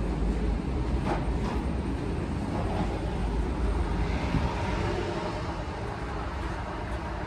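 Steady low rumble of a vehicle or machinery, with two faint clicks about a second in.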